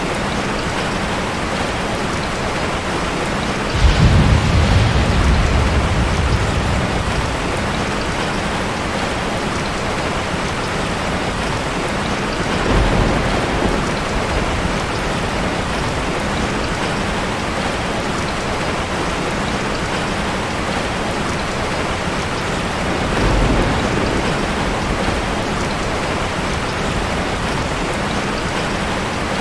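Heavy rain falling steadily. About four seconds in a loud thunderclap rumbles and fades over a few seconds. Two fainter rolls of thunder follow later.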